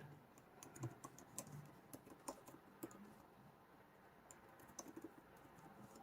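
Typing on the Apple Magic Keyboard for the 11-inch iPad Pro: faint, irregular key clicks, a few a second, with a short pause a little past the middle.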